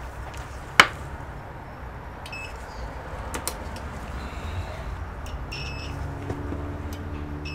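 Multimeter test probes and their leads being picked up and handled on a silicone workbench mat: one sharp click under a second in, then a few faint clicks and taps, over a low steady background hum.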